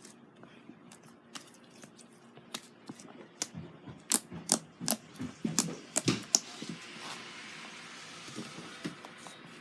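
Slime being squeezed and poked, making a run of sharp sticky pops and clicks that grow loudest and quickest in the middle, then a softer steady hiss near the end.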